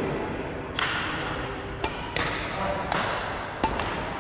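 Badminton rackets hitting a shuttlecock in a rally: several sharp pops about a second apart, echoing in a large hall.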